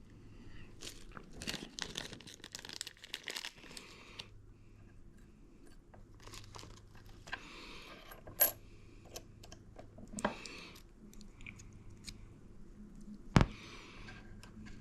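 Small metal clicks and taps from the parts of an Icon 1/4-inch ratchet being handled during reassembly with a new 3/8-inch anvil. The clicks come thickly at first, then sparsely, with one sharp click near the end.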